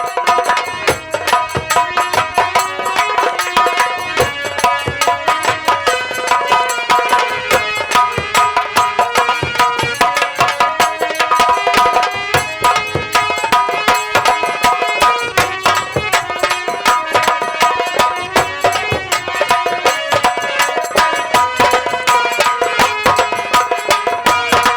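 Live Indian folk theatre music: fast, continuous hand-drum strokes under a melody instrument holding steady notes.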